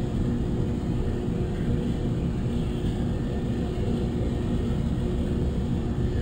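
Steady low machine drone, a running motor or engine, with a few faint steady tones over the rumble and no change in pitch or level.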